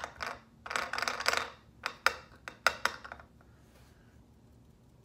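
Quick taps and clicks of fingers dabbing paint onto a small hand-held piece of Ranger Quick Cure Clay, with a stretch of rubbing about a second in. The tapping stops after about three seconds.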